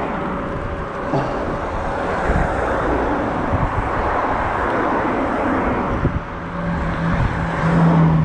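Wind rushing over the microphone and road noise from a moving e-bike, with cars passing in the other lane. A steady low hum joins about six seconds in.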